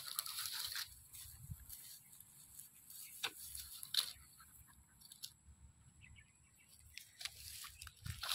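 Faint rustling and crackling of dry grass as a dog lying in it shifts and rolls, with a few scattered short clicks.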